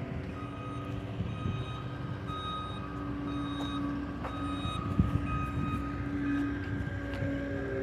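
A vehicle's reversing alarm beeping about once a second, with the engine running under it.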